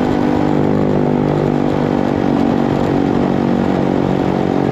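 Small single-cylinder four-stroke motorbike engine running at a steady cruising speed, its note holding an even pitch.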